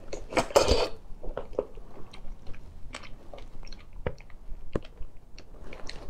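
Close-up eating sounds of a person sucking and chewing marinated crab: two louder wet sucking bursts in the first second, then scattered small clicks and smacks of chewing the meat from the crab legs.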